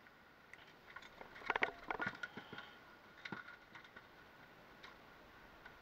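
Handling knocks as a sheepshead is worked out of a landing net and laid on the boat deck: a quick cluster of taps and knocks about a second and a half in, then a couple of single taps.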